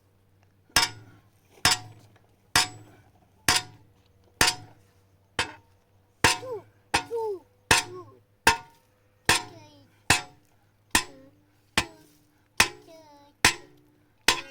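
A hammer striking metal in a steady rhythm, about one blow a second, each blow ringing briefly.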